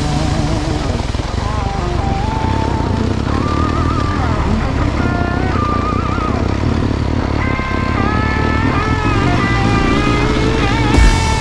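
Background music with a stepping melody over the steady running of a KTM 690 Enduro R's single-cylinder engine at low speed.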